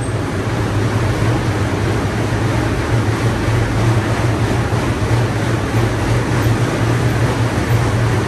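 Two Rogue Echo air bikes ridden flat out: their fan wheels make a loud, steady rushing whir with a low, uneven throb as the riders pump the handles and pedals.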